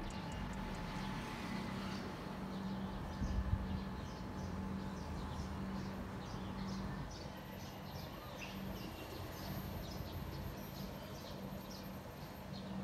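Background ambience: a steady low hum, with a run of short, high chirps about twice a second starting about four seconds in. There is a brief low thump about three seconds in.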